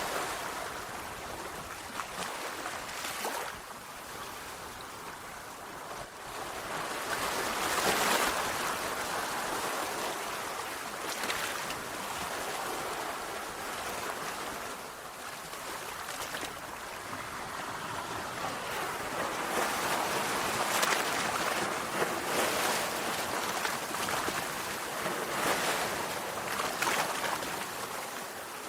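Sea waves washing onto a shore, a continuous surf hiss that swells every few seconds as waves break.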